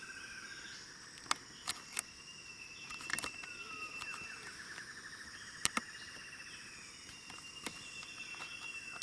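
Common paradise kingfisher calling: thin, drawn-out whistled notes and a fast trill in the middle, over a steady high insect hum, with a few sharp clicks.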